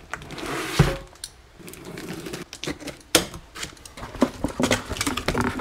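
Cardboard box being cut open with a utility knife and handled: a scratchy scraping, then a sharp knock about three seconds in and a quick run of clicks and knocks as the box is turned and stood on a wooden bench.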